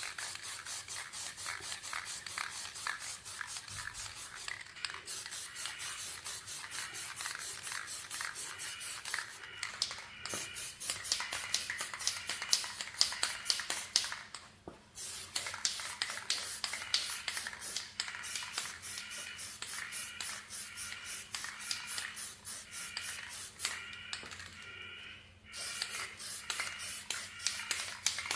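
Sandpaper being rubbed by hand back and forth over the side fairing panel in quick, even strokes, about four or five a second, stopping briefly a few times.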